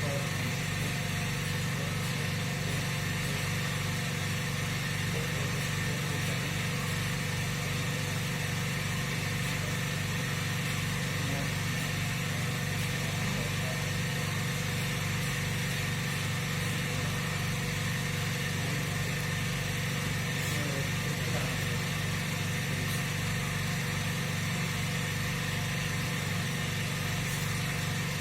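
Steady, unchanging machine hum, strongest low down, with a few faint steady tones above it.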